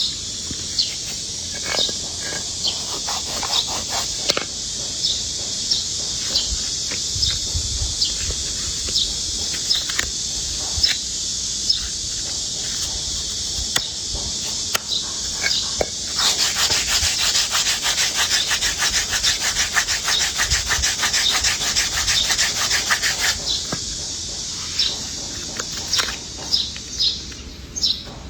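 Rasping rubbing and scraping over a steady high hiss, quickening into a fast run of strokes for several seconds in the middle. Short sharp chirps are scattered through it.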